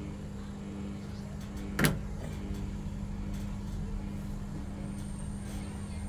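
Samsung ecobubble front-loading washing machine in its wash cycle, its drum motor humming steadily as the drum tumbles sudsy laundry. A single sharp knock comes about two seconds in, with a few faint clicks around it.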